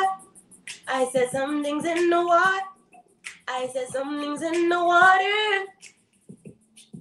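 A woman singing two long phrases, the pitch sliding up near the end of each. Faint low held notes and a few soft ticks sound in the gaps.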